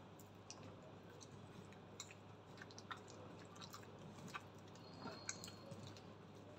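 Faint wet squishing with scattered small clicks: a hand squeezing and kneading mashed potato mixed with butter and milk in a stainless steel bowl.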